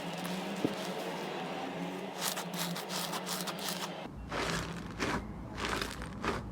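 Slime being worked by hand: soft scraping and squishing, then several short crackly squelches in the second half.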